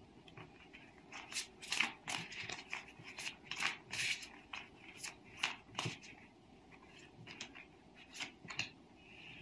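A tarot deck being shuffled and handled by hand: a run of short papery swishes and snaps, dense for the first six seconds or so, fewer near the end.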